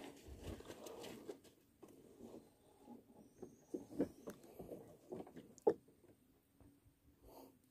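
Faint, irregular taps, rustles and light knocks of hands handling gear on a small wooden boat, with one sharper knock a little before six seconds in. A faint low steady hum comes in near the end.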